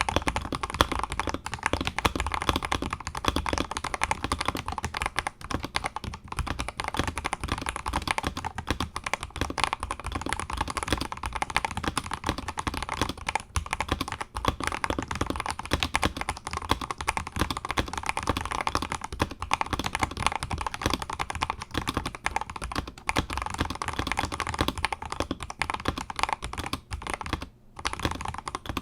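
Continuous fast typing on an Akko 5075S mechanical keyboard with Akko Jelly White linear switches, lubed with Krytox 205g0 and mounted on a polycarbonate plate: a dense stream of key clacks with a short pause near the end.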